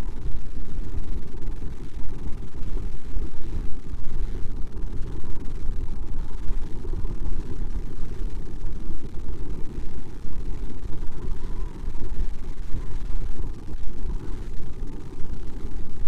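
Wind buffeting an outdoor microphone: a steady, loud low rumble that flutters rapidly in loudness.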